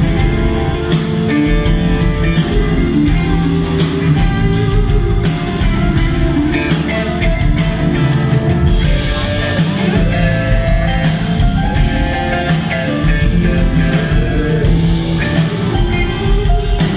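Live band playing a pop-rock song: acoustic guitar strummed over a drum kit and band, heard through the PA.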